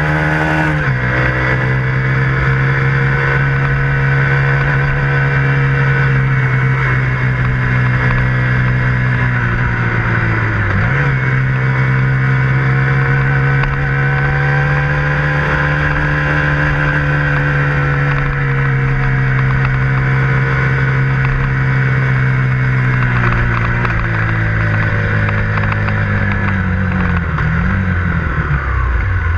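KTM 125 Duke's single-cylinder four-stroke engine running under way, heard from the moving bike. Its pitch drops sharply about a second in and again around eleven seconds in, as with gear changes, and falls away slowly near the end as the bike eases off.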